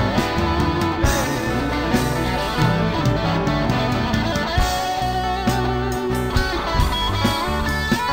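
Instrumental break of a rock song: a guitar lead playing held notes over bass and a steady beat.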